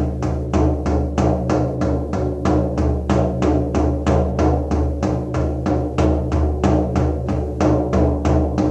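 Shamanic drum beaten in a steady, fast, even rhythm of roughly four to five beats a second, each stroke leaving a low ringing hum beneath the next. This is the steady journey beat that carries a drum meditation.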